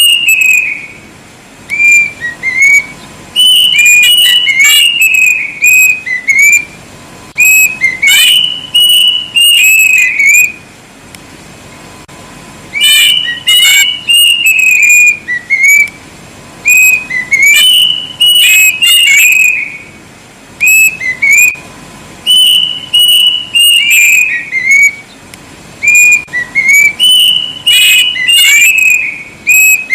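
Kedasih (plaintive cuckoo) singing: loud, clear whistled phrases of quick notes that slide and step downward, given in bouts a couple of seconds long and repeated about every three to five seconds.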